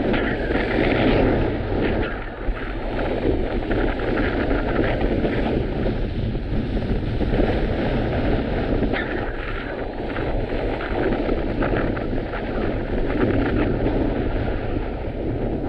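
Strong wind buffeting the microphone: a loud, steady rushing noise that swells and eases with the gusts.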